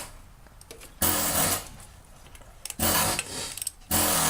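Hand ratchet wrench clicking in bursts of back-and-forth swings as intake manifold bolts are worked loose: one burst about a second in, another near three seconds, and a longer one starting around four seconds in.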